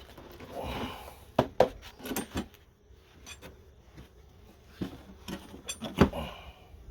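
Handling noise: a scattering of sharp knocks and clicks from hard objects, with a short scraping rustle about half a second in and another near the end. The loudest knock comes about six seconds in.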